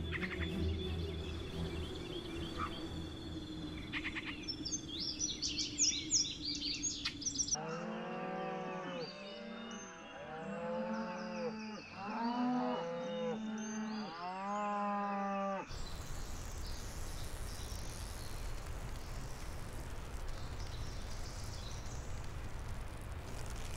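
Cattle lowing: a run of several drawn-out moos, one after another. Before them, fading music with birds chirping; after them, a steady rushing noise.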